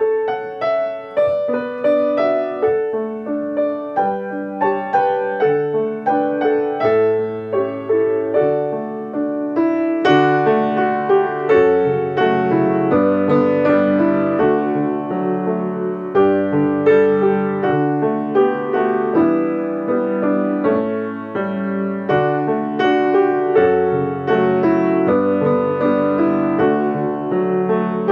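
Solo piano music: a steady flow of struck notes and chords, each left to ring and fade.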